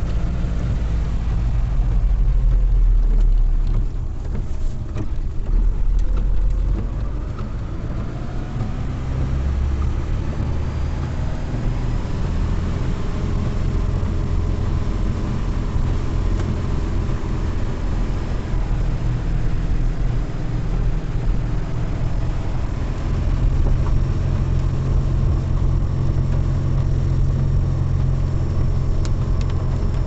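A car driving on a wet road, heard from inside the cabin: a steady engine and tyre noise that swells and eases a little with speed.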